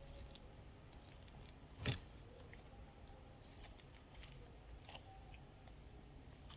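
Homemade glue slime being worked by hand, giving faint sticky clicks and ticks, with one louder crackle about two seconds in.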